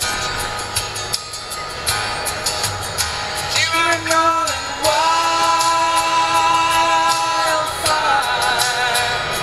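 A song with singing and instruments playing on the car radio, heard inside the moving car. About halfway through, the singer holds one long note for roughly three seconds.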